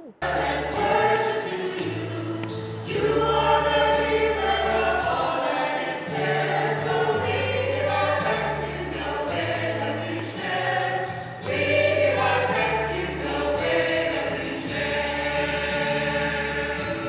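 Background music: a choir singing a gospel song over a bass line of held notes that change every second or two.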